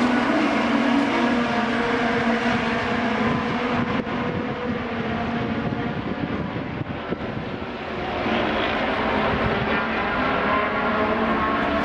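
Car engine running at fairly steady revs, easing off about seven seconds in and picking up again near the end.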